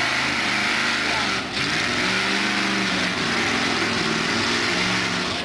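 Competition pulling truck's engine running loud and steady, with a brief dip about a second and a half in. Voices of onlookers underneath.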